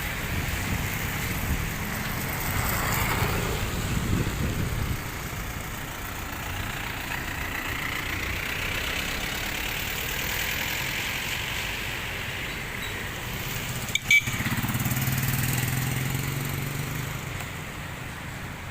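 Street noise with motor vehicles going by, including a low engine hum that swells for a few seconds after a sharp click near the end.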